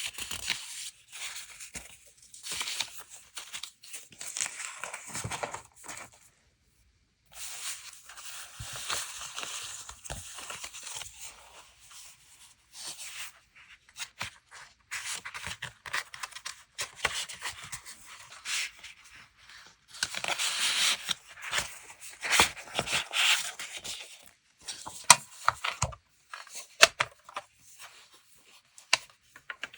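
Paper being handled and torn: bursts of crisp rustling with sharp ticks, broken by short pauses.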